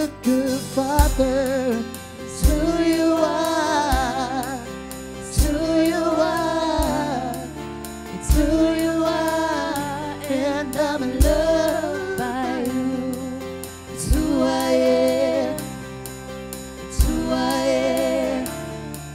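Live worship band playing: sung phrases with vibrato over guitars and keyboard, with a strong low drum or bass hit about every three seconds.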